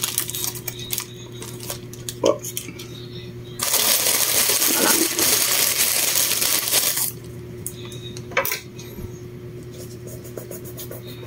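Kitchen utensils clicking and knocking against dishes, with a few sharp clicks near the start and one knock near the end. In the middle a loud rushing noise starts suddenly and cuts off about three seconds later. A low steady hum runs under it all.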